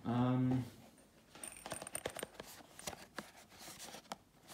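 A short hummed sound from a man's voice, then light clicks and rustles as a small cardboard box holding a Japanese glass wind chime (fūrin) is picked up and handled, with a faint high tinkle of the chime inside about one and a half seconds in.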